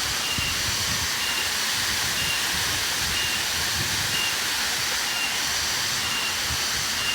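Waterfall pouring: a steady rushing hiss of falling water, with a short high chirp repeating about once a second.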